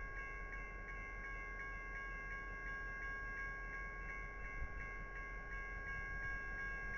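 Diesel locomotive idling: a steady low rumble with a high-pitched whine held on several steady tones, the upper ones pulsing faintly about three times a second.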